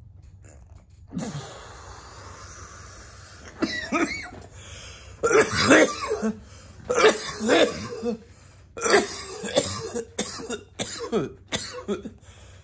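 A man in a long, hard coughing fit with throat clearing, starting about three and a half seconds in after a steady hiss. The cough comes from harsh cannabis smoke just taken in a hit.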